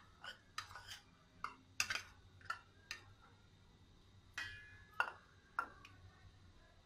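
A steel spoon clinks and scrapes against a china bowl as almonds are knocked out into a pot of milk, then a ladle taps on the rim of the steel pot. There are about a dozen sharp, irregular clinks, and one a little past the middle rings briefly.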